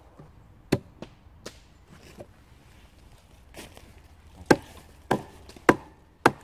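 Sharp knocks of a wooden club striking the back of an axe head set into a log end, driving the axe in to split the log. A few scattered knocks come first, then four steady strikes about half a second apart near the end.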